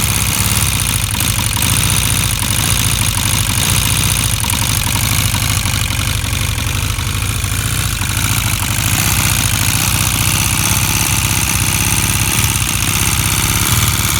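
Honda CB 400 motorcycle engine idling steadily, with a rapid even clatter that the owner wonders is an engine rattle.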